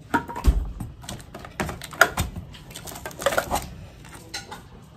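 Metal tin cans knocking and clinking as they are picked up, handled and set down: a string of irregular sharp knocks, the loudest about two seconds in.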